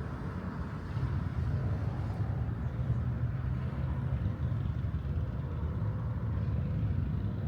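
Steady low rumble of city traffic, a little louder from about a second in.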